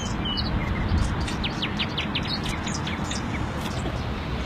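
Small birds chirping and tweeting, with a quick run of short high chirps about a second and a half in, over a steady low background rumble.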